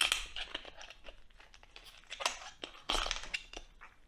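Chef's knife cutting into a whole roasted lamb head: crisp roasted skin crackling and meat tearing in irregular bursts, loudest right at the start and again about two and three seconds in.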